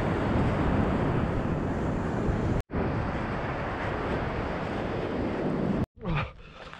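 Wind buffeting the microphone: a steady, heavy rushing noise that drops out for an instant about two and a half seconds in and cuts off abruptly near the end, leaving quieter outdoor sounds.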